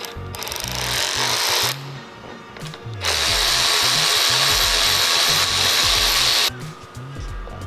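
Cordless ratchet running a bolt at the light bracket's mounting point, with a short run and then a longer run of about three and a half seconds.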